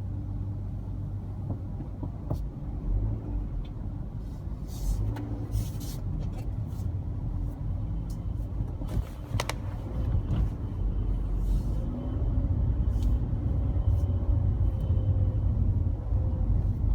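Steady low rumble of a car's engine and road noise heard from inside the cabin while driving, with a few scattered clicks and knocks.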